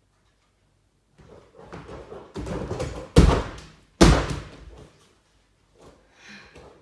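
Inflatable air track mat thudding under a barefoot gymnast's tumbling pass: light running steps build up, then two loud landings about a second apart, each booming briefly through the air-filled mat.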